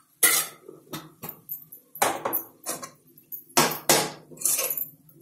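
Flat steel spatula knocking and scraping against a steel kadhai while leafy greens are stirred: a string of sharp metal knocks and scrapes.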